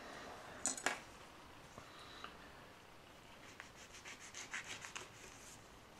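Chef's knife cutting through a fresh Capsicum chinense chili pepper on a paper towel: two light clicks under a second in, then a run of quick, faint scratchy strokes for about two seconds as the blade saws through the pepper.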